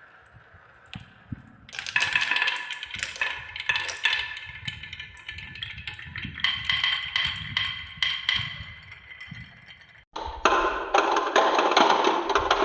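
Balls rolling and clattering down a handmade gutter marble run: many quick clicks and knocks over a steady ringing rolling hum. About ten seconds in the sound cuts and gives way to a denser, rushing rolling rattle.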